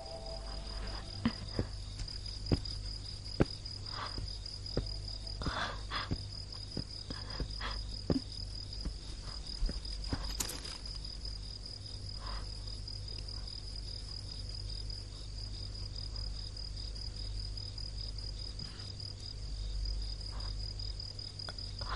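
Crickets trilling steadily in a night ambience, a continuous high pulsing chirp. Scattered short clicks and taps sound over it, mostly in the first half.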